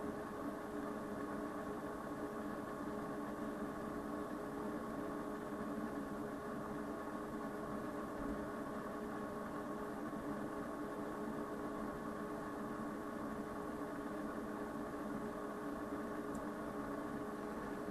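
Steady electrical hum from running electronic equipment, several steady tones over a low hiss, unchanging throughout.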